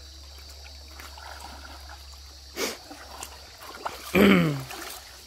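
Shallow creek water trickling and sloshing as a man wades through it, with a single sharp splash about two and a half seconds in. About four seconds in comes a loud short call that falls in pitch.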